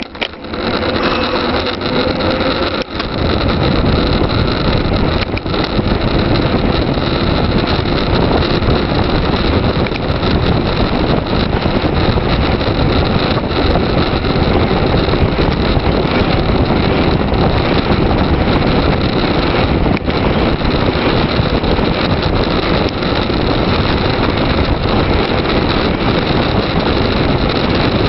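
Wind rushing over the camera's microphone on a fast downhill bicycle descent: a loud, steady rush of noise.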